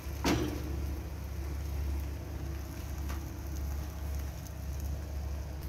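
Beaten egg frying in a thin film of oil in a non-stick pan, a steady soft sizzle over a constant low hum, with a single knock just after the start and a faint click about three seconds in.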